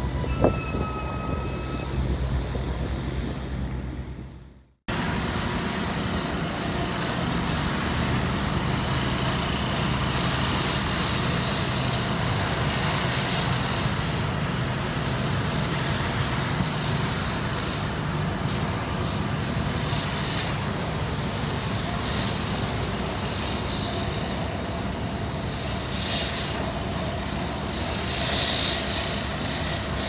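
Steady diesel engine hum of asphalt paving machinery, with a click and a brief high tone near the start. It fades out and cuts off about five seconds in, then gives way to a steady drone of road machinery and traffic with a hissing wash of noise.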